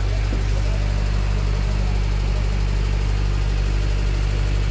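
An engine running steadily at idle aboard a fishing boat: a low, even drone with a constant pitch.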